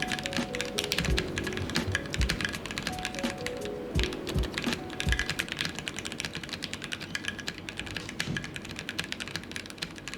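Fast, continuous typing on a custom-built mechanical keyboard, a dense run of key clicks and clacks, with background music playing under it.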